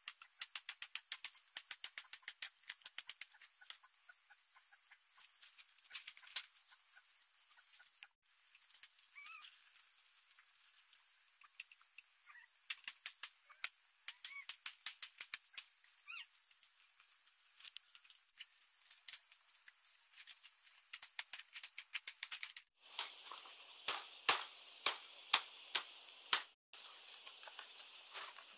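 Thin split-bamboo strips clicking and ticking against each other as they are woven into a mat, in quick runs of sharp ticks about three or four a second, with a few louder knocks near the end.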